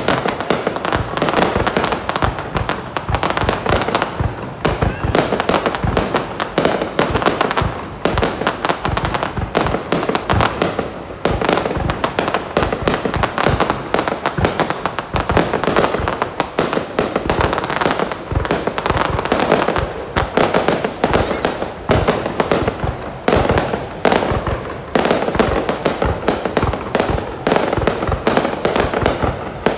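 Fireworks display: a dense, continuous barrage of explosions and crackling, many bangs a second.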